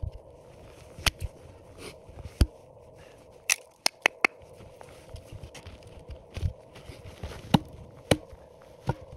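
Small hatchet chopping firewood on a chopping log: about a dozen sharp wooden knocks at irregular intervals.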